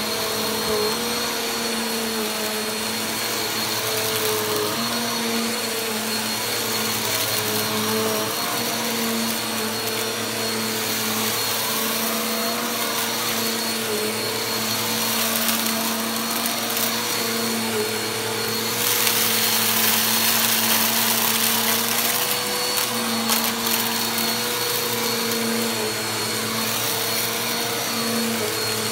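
Bagless upright vacuum cleaner running steadily over carpet, sucking up fine dirt with a light crunch. Its hum swells louder for a few seconds about two-thirds of the way through.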